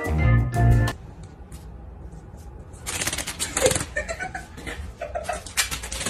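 Background music that cuts off about a second in, then quieter room noise and, from about halfway, irregular clattering and rustling with a few short, faint pitched sounds.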